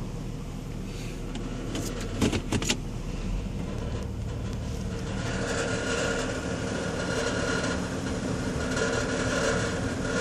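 A vehicle running steadily, with a few sharp clicks about two seconds in, growing louder from about five seconds in.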